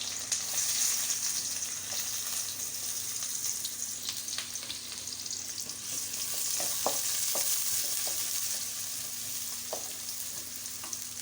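Sliced onions sizzling in hot oil in a pan, with a steady hiss and a few sharp taps and scrapes of a spoon stirring against the pan.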